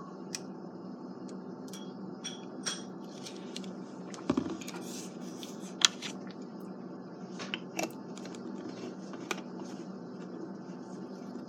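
Scattered small clicks and taps over steady background hum, with a dull thump about four seconds in and one sharp click just before six seconds.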